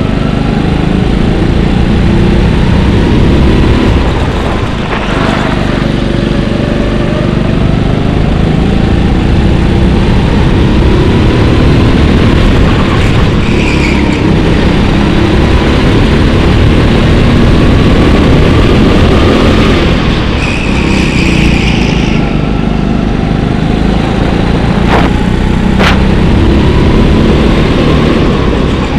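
Go-kart engine heard onboard, running hard with its pitch sliding down and back up as the kart slows for corners and accelerates out, most deeply twice. Two sharp knocks come near the end.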